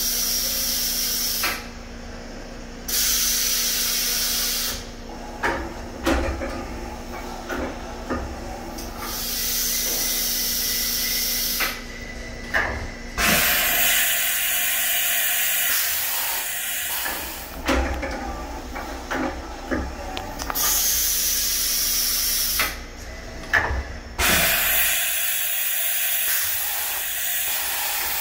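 Haas EC-630 horizontal machining center's automatic tool changer cycling: about half a dozen bursts of compressed-air hiss, each lasting a second to a few seconds, with clunks and knocks of the tool-change arm between them.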